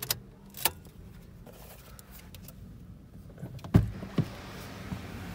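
A few light clicks, then a heavy thump and a smaller second one about four seconds in, as a Honda City's door is unlatched and pushed open; the background noise grows louder once it opens.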